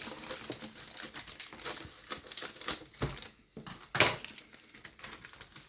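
Clear plastic bag crinkling and rustling as it is handled and pulled open, with a sharper snap about four seconds in.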